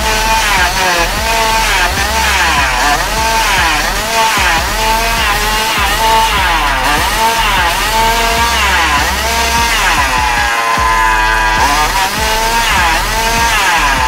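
1/5 scale Baja RC car's 36cc two-stroke racing engine revving up and down about once a second under throttle blips, held steadier at higher revs for a couple of seconds late on. The high-speed carburetor needle is being tuned for top RPM without running too lean.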